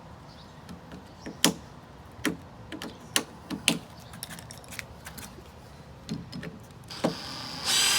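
A few scattered sharp taps and clicks on the wooden window frame, then near the end a drill starts spinning, backing out a corner screw of the frame.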